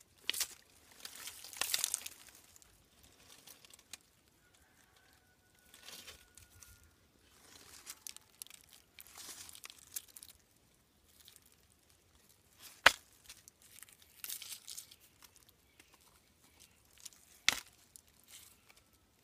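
Fingers scraping and digging through wet soil, gravel and dead leaves in bursts of rustling and crunching. There are two sharp clicks, one past the middle and one near the end, likely stones knocking together as they are moved.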